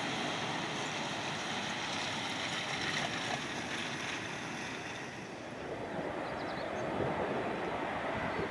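Jet engine noise from a Boeing 777F, whose GE90 turbofans run as it rolls out just after touchdown. About halfway through, the sound dips and gives way to the steadily swelling engine noise of an Airbus A330-200F freighter on final approach.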